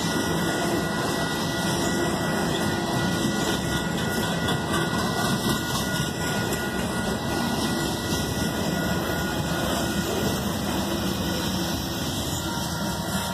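Freight train cars rolling past: a steady rumble and clatter of steel wheels on rail as tank cars and then centerbeam flatcars loaded with lumber go by.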